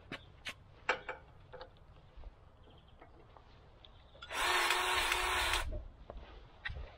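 An air-powered grease gun gives one hissing blast of compressed air lasting about a second and a half while its coupler sits on a grease nipple of a sprayer's boom pivot. Before the blast come a few sharp clicks and knocks as the metal coupler is fitted onto the nipple.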